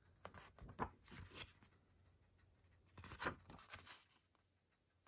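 Faint rustling and clicking of a plastic Blu-ray keep case and its paper cover sheet being handled, in two short bursts about a second in and again around three seconds in.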